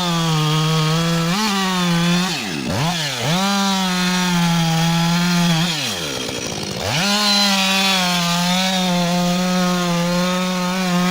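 Two-stroke chainsaw running at full throttle in wood, with a steady high engine note. The throttle is eased off twice, about two and a half seconds in and again about six seconds in; each time the engine drops toward idle and then revs straight back up.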